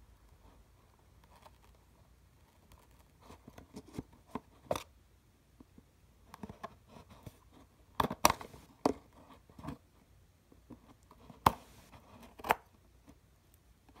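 Handling noise from fingers working a small cardboard box and a metal phone charm: scattered clicks, taps and rustles, with a cluster of sharper clicks about eight seconds in and two more near the end.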